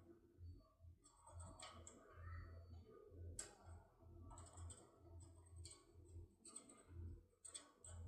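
Faint, irregular metal clicks and scrapes of a locksmith's decoding tool being handled and worked in a Mul-T-Lock lock cylinder, with one sharper click about three and a half seconds in.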